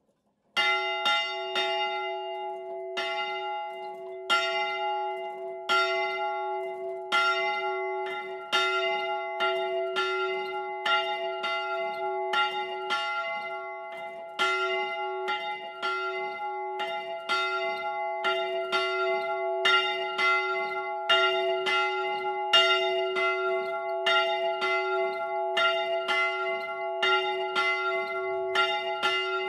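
A single bronze church bell of about 102 kg and 567 mm diameter, cast in 1937 by the Fischer brothers of Trnava and tuned to f², starts ringing about half a second in. It swings full circle with its clapper striking on each swing, and its low hum tone rings on continuously between strokes.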